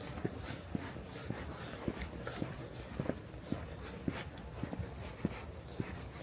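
Footsteps of a person walking at a steady pace, about two steps a second, over a low background rumble. A thin, steady high whine joins about halfway through.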